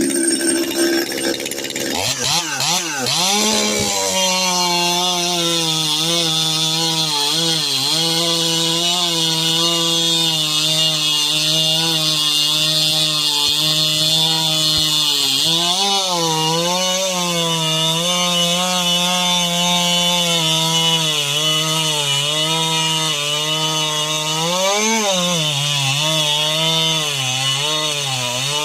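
Ported Stihl chainsaw cutting frozen hardwood. The engine pitch wavers and drops a couple of seconds in as the chain bites, then holds a steady note under load, sagging briefly a few times in the cut.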